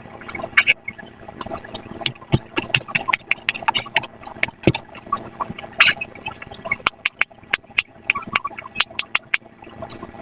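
Silicone pop-it fidget toys being popped in quick succession: a rapid, irregular run of sharp little pops, several a second.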